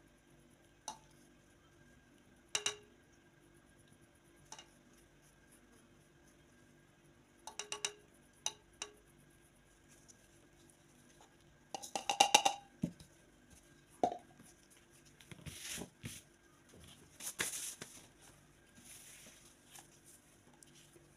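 Small stainless steel mesh strainer and plastic bowls being handled: scattered clinks and knocks, with a quick run of taps about halfway through, then softer scraping and rustling.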